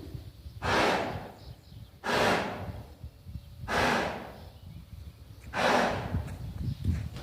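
A horse blowing hard, with four loud breaths about every second and a half to two seconds; no hoofbeats are heard between them.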